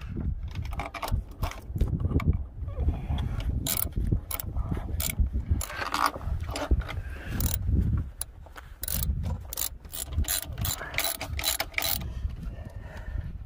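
Ratchet wrench clicking in repeated quick runs as the throttle body bolts are tightened down through the spacer.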